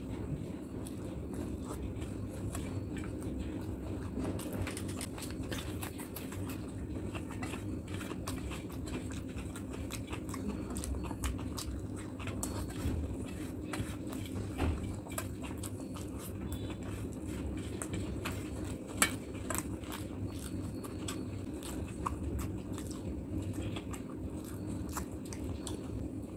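Close-miked chewing and wet mouth sounds of someone eating rice and curry by hand, with many small clicks and the squish of fingers mixing rice on a steel plate. There is one sharper click about two-thirds of the way through.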